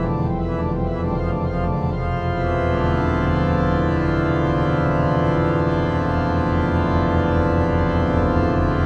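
Organ music: quick shifting notes over held low tones, then a full, dense chord held steady from about two and a half seconds in.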